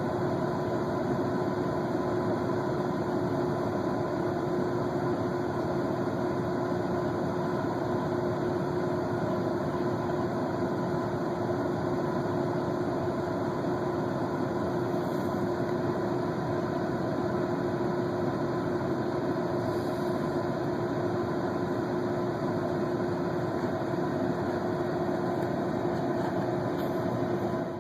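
Heavy-equipment engine running steadily with an even hum, unchanging throughout, cut off abruptly at the end.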